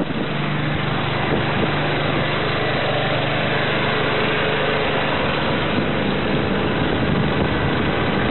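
Water rushing and splashing along a sailboat's hull as it moves through the swell, over a steady low hum.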